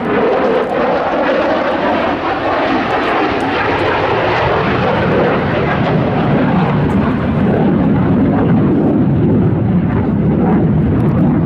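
F-16 fighter jet, its single General Electric F110 turbofan making a loud, continuous jet rumble that deepens and grows a little louder about halfway through.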